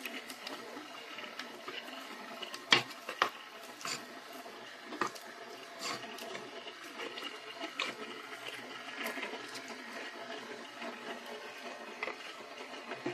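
KitchenAid stand mixer running on slow speed, its flat beater churning mashed taro and water into poi in a stainless steel bowl: a steady motor hum with irregular wet slaps and knocks.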